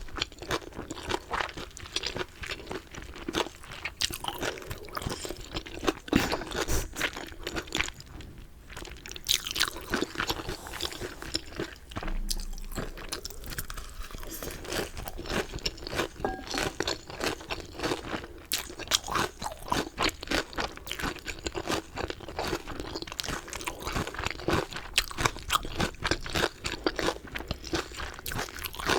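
Close-miked eating of chicken: crunchy bites and chewing, a dense run of crisp crackles that eases off briefly about eight seconds in.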